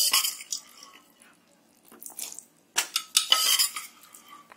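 Spatula scraping against a kadhai while stirring boiled black chickpeas into a wet masala, in three bouts with short pauses between.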